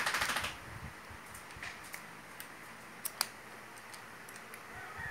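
Quick run of small metallic clicks as a screwdriver turns the screw inside an electric drill's chuck, whose thread is stripped. Scattered light clicks and taps of the screwdriver and chuck follow, two sharp ones about three seconds in.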